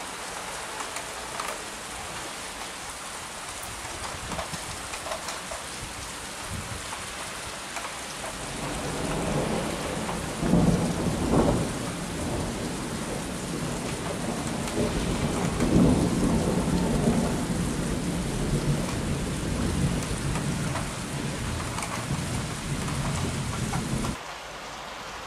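Steady rain with rolling thunder that builds about eight seconds in, swells twice, and rumbles on before the sound drops abruptly near the end.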